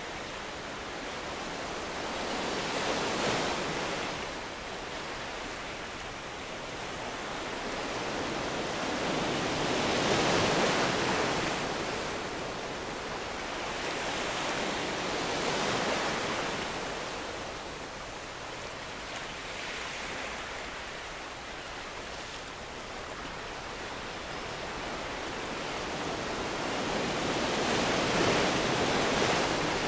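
Ocean surf on a sandy beach: a steady wash of waves that swells and fades about five times as the waves break and run up.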